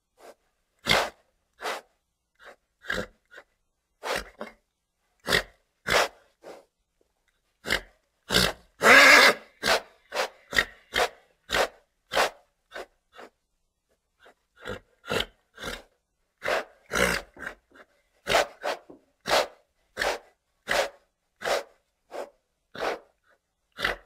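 Horse snorting and blowing short, sharp breaths through its nostrils, about one or two a second. A longer, louder snort comes about nine seconds in.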